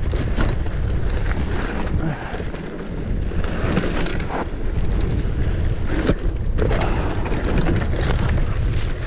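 Mountain bike descending a dirt trail: wind buffeting the microphone, with the tyres on loose dirt and the bike rattling over bumps, and several short louder scrapes along the way.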